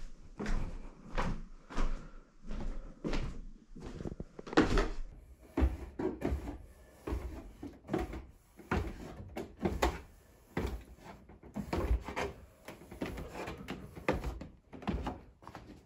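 Footsteps coming down wooden stairs, each step a dull knock on the treads, about two a second.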